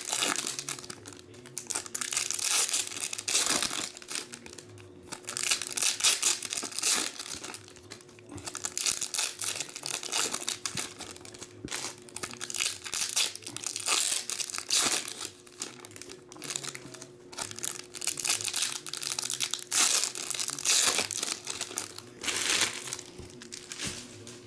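Foil trading-card pack wrappers being torn open and crinkled by hand, in repeated bursts of rustling.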